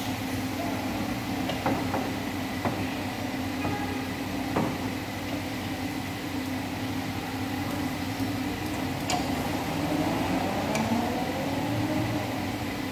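A steady low hum, with a few sharp clicks and knocks of metal brake parts being handled at a car's rear wheel hub.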